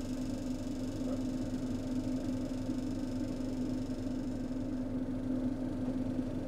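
Inside a Roslagsbanan X10p electric commuter train standing at a station: a steady low hum with a rumble beneath it, and a faint high whine that fades out about five seconds in.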